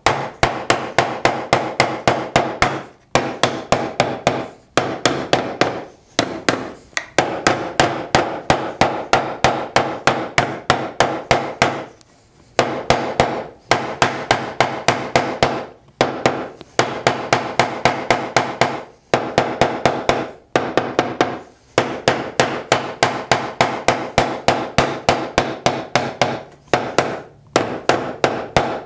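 Rapid, steady taps of a soft-faced mallet driving a walnut inlay into its pocket in a cherry end-grain cutting board, about four or five blows a second in runs of a few seconds with short pauses between. The glued inlay is a tight fit and hard to drive in.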